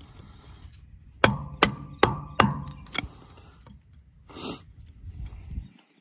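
Hammer blows on a punch driven into the steel winch drum's cable anchor hole, trying to drive out the stuck end of the broken old winch cable. There are five sharp metallic strikes, about two a second.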